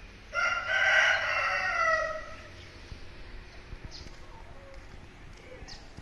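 An aseel rooster crows once, a single call about two seconds long that starts a little way in and drops in pitch as it trails off.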